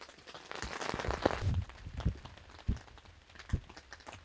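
Raindrops tapping one by one on the tent's fabric, heard from inside the tent, with a louder rustle about a second in.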